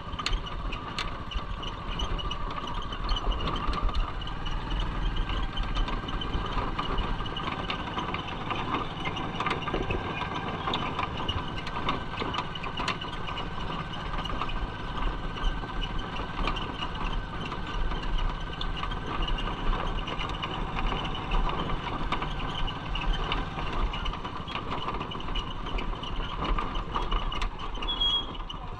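Motor tricycle's small motorcycle engine running steadily at low speed, heard from inside the passenger sidecar, with scattered rattles and clicks as it rolls over a cobblestone street.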